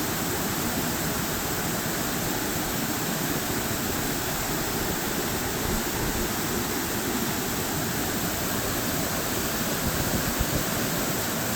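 Waterfall rushing below, a steady, even roar of falling water.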